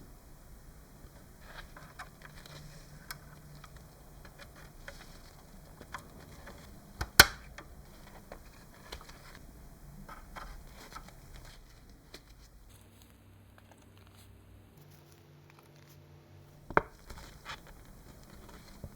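Light handling of small scale-model parts: faint scraping and tapping, a sharp click about seven seconds in and another near the end. In the middle comes a short low hum that steps to a different pitch partway.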